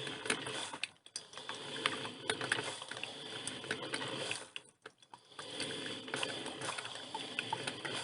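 Drip filter coffee machine brewing: a steady hiss with irregular crackling and sputtering clicks, easing off briefly about a second in and again around the middle.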